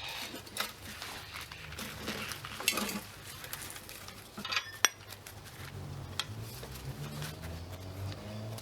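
Hand tools working the bolts on a steel mower side plate: scattered metallic clinks and clicks, with one sharp click about five seconds in.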